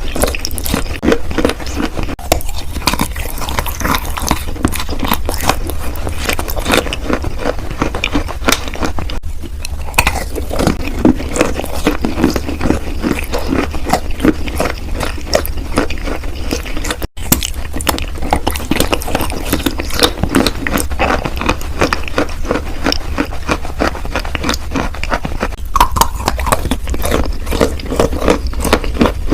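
Close-up biting and chewing of wet chalk: a dense, unbroken run of small crackling clicks over a steady low hum, with a brief cut-out a little past halfway.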